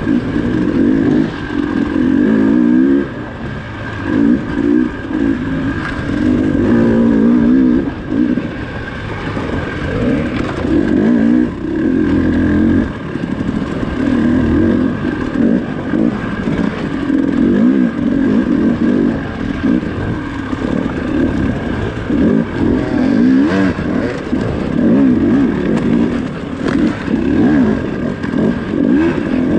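Dirt bike engine, heard close up from the bike's own camera, revving up and fading back again and again as the throttle is worked on and off over rough trail.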